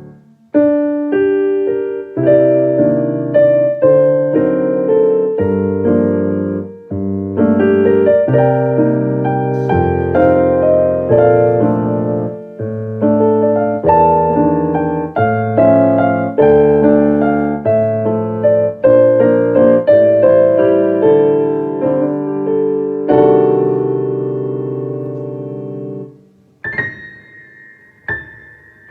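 Solo piano playing a flowing melody over low bass chords, dropping to a soft, held high note near the end.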